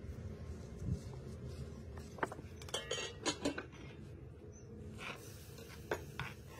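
Light clinks and knocks of dishes and utensils being handled during cooking, a quick cluster of them about three seconds in and a few more near the end.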